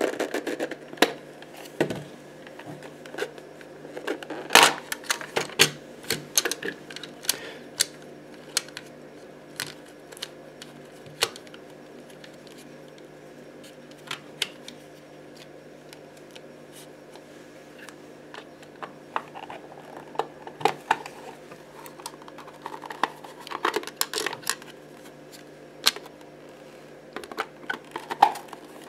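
Irregular clicks and knocks of a plastic blood pressure monitor case and its circuit board and parts being handled and fitted back together, with a sparser stretch about halfway through, over a faint steady hum.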